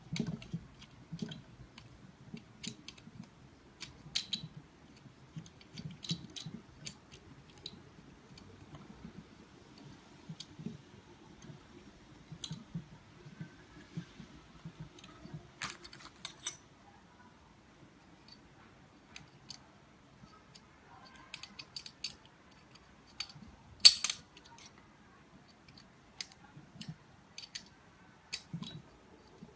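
Scattered clicks and light metallic taps of screws, tools and metal parts being handled while assembling a grouting injection pump, with one sharper knock about two-thirds of the way through.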